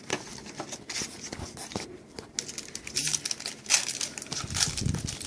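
Plastic and foil wrapping of trading card packs being torn open and crinkled, an irregular crackling rustle.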